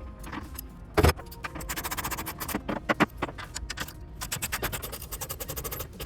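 Ratchet with a Torx bit clicking in quick runs while backing out truck bed bolts, with a sharp metallic knock about a second in.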